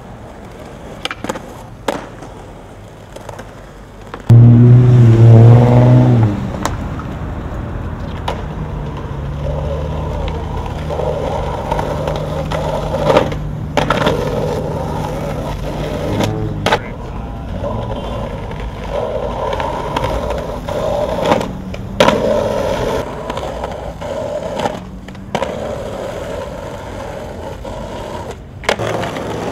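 Street skateboarding: urethane wheels rolling on pavement, with the sharp pops and landing slaps of tricks several times through. About four seconds in comes a loud ringing scrape lasting about two seconds, the loudest part.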